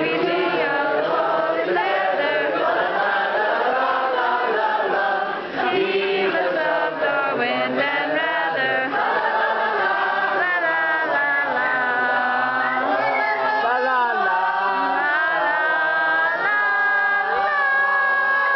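A group of voices singing a Christmas carol together, several lines running on without a break and ending on a held note near the end.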